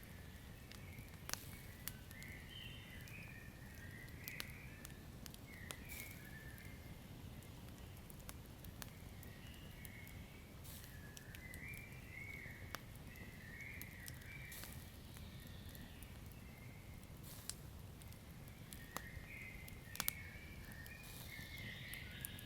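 Wood fire crackling, with sharp irregular pops over a low steady rumble. Bursts of high chirping run along in the background.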